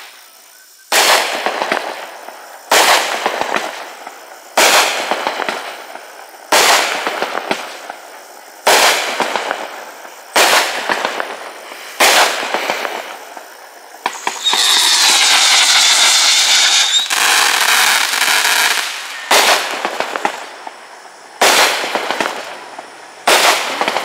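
Deep Ocean 45-shot consumer firework cake firing shot after shot, about one every two seconds. Each shot is a sharp bang with a fading tail. About halfway, a loud steady hissing stretch with warbling tones lasts some four seconds before the single shots resume.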